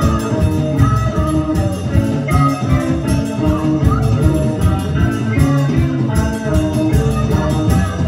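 Live band playing a new-wave song at full volume: electric guitars and accordion over a steady drum beat.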